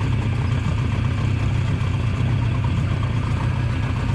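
Boat outboard motor running steadily at a constant speed, with a low, even hum.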